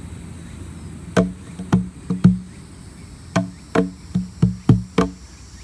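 Wooden cajón played with bare hands: deep ringing bass strokes mixed with sharper slaps in a loose rhythm. The strokes start about a second in, with a short pause near the middle.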